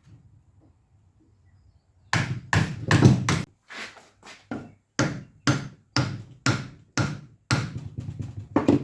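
Repeated hammer strikes knocking the copper windings out of an air-conditioning compressor's motor stator. The strikes begin about two seconds in, come in a quick cluster, then settle to about two blows a second.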